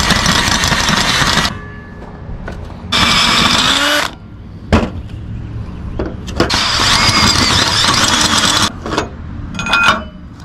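Power drill with a step drill bit boring out a hole in a steel leaf-spring shackle perch to 5/8 inch, running in three bursts with pauses between. A few short metal clinks near the end as a bolt is fitted through the enlarged hole.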